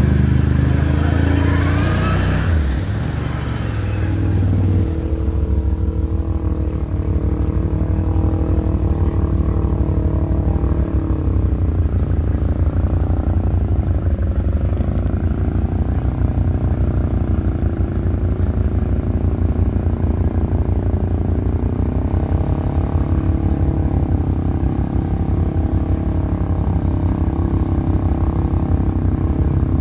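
ATV engine running steadily at a low throb while wading through deep water, with water splashing for the first few seconds.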